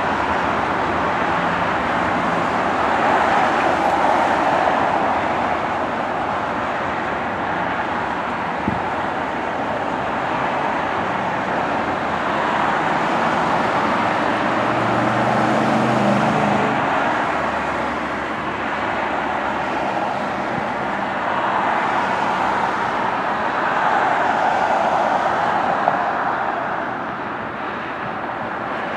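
Steady road traffic noise: cars passing one after another, their tyre noise swelling and fading. A vehicle engine hums briefly about halfway through, and there is a single click.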